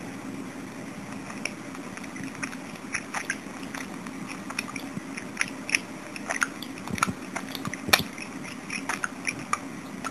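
Budgerigar making a scattered series of short clicks and ticks, with one sharper click about eight seconds in.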